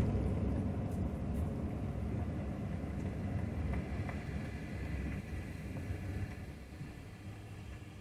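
Chevrolet Silverado pickup driving slowly on a paved road, heard from inside the cab: a low engine and tyre rumble that grows steadily quieter.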